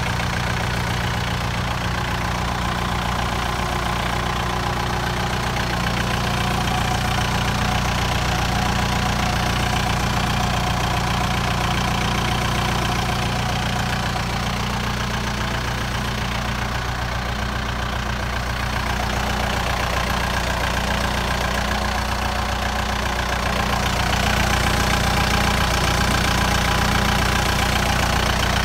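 Kubota M7040's four-cylinder diesel engine idling steadily, a little louder near the end.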